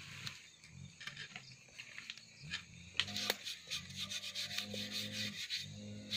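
A hand rubbing and wiping across the top of a flat stone slab over a small stick fire, a run of quick scraping strokes that grows busier about halfway through.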